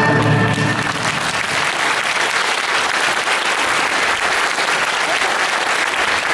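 Audience applauding steadily, as the show's music ends and its last low note dies away in the first second.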